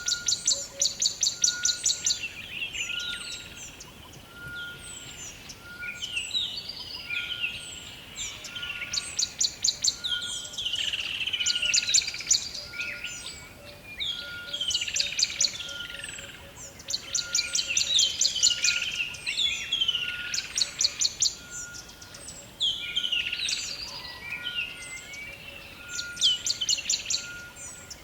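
Rainforest birds calling. Rapid high trills recur every few seconds, with swooping whistled calls between them and a short steady note repeating about once a second.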